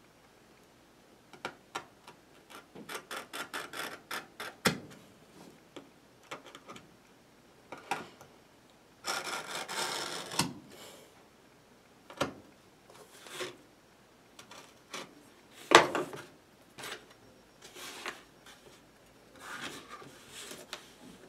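Knife blade cutting leather along a metal ruler on a wooden board: a run of quick short scraping strokes, a longer scrape about halfway, then scattered strokes with one sharp click, the loudest sound, about two-thirds of the way through.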